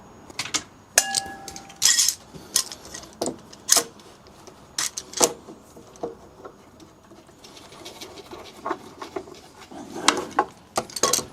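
Irregular wooden knocks and clatter as pieces of wood and tools are handled and set into a wooden chest, with a brief metallic ring about a second in.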